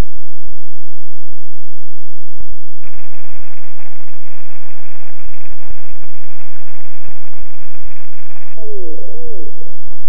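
Radio static: crackling and popping at first, then a steady hiss that cuts in about three seconds in and stops abruptly near the end. A wavering, warbling pitched sound follows the static.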